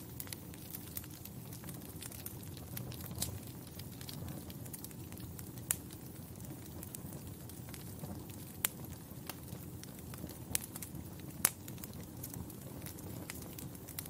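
Log fire crackling in a fireplace: a steady low rush of burning with scattered sharp pops, the loudest a little past the middle and toward the end.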